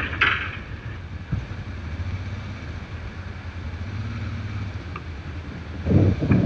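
Honda Transalp V-twin engine running at low speed as the motorcycle rolls up a ferry's steel loading ramp into the car deck, with wind noise on the microphone. A few heavy thumps come near the end.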